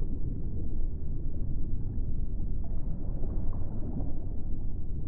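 Underwater ambience sound effect: a steady low rumble with faint bubbling blips now and then.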